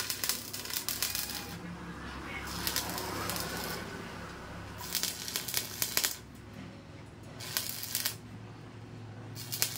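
Stick (arc) welder crackling and sizzling as it welds the steel frame of a tricycle sidecar. The arc strikes in about five short runs of half a second to a second and a half each, with brief pauses between.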